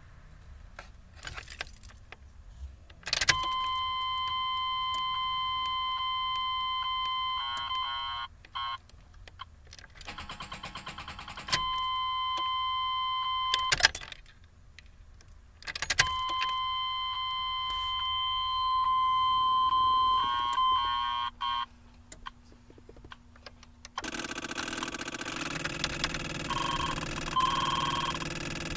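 A Chevrolet Silverado's dashboard warning buzzer sounds a steady tone three times, for several seconds each, and each time stutters before it stops. Clicks and key rattle come in between, and the engine does not crank: the truck won't turn over. Near the end a steady rushing noise begins, with short beeps over it.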